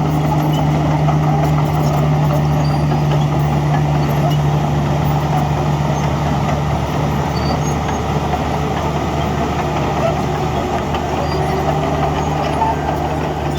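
Heavy diesel engine of construction machinery running steadily, a loud low drone whose pitch holds throughout, easing a little in the middle and coming back near the end.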